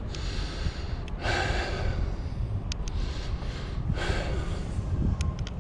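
A cyclist breathing heavily, out of breath from pedalling, with two loud deep breaths about a second and four seconds in over a steady low rumble. A few faint ticks come near the end.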